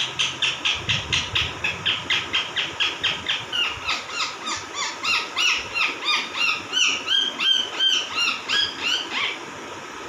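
Rose-ringed parakeets calling in a fast run of short, high-pitched chirps, about four a second; midway the calls turn into downward-sliding chirps, and they stop shortly before the end.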